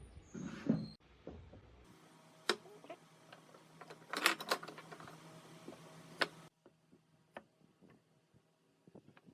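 A few scattered sharp knocks and clicks, with a quick cluster of them about four seconds in. The background hum changes abruptly twice.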